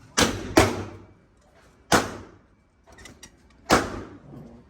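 Four gunshots, sharp bangs each with a short echoing tail: two about half a second apart at the start, one about two seconds in, and one near the end.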